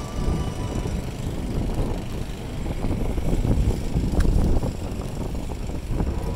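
Strong wind from the snowstorm buffeting the microphone: an irregular, gusting low rumble that swells a little past the middle.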